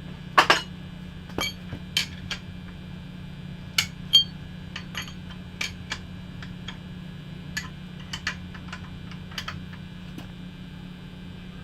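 Irregular metal clicks and clinks of hand tools being handled and fitted, a socket wrench and a cheater bar on a tight drain bolt, over a steady low hum.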